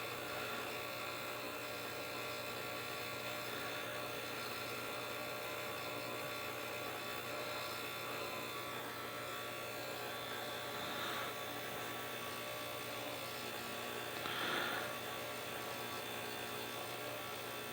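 Steady electrical hum with a buzz over it, broken a couple of times by faint, brief soft sounds.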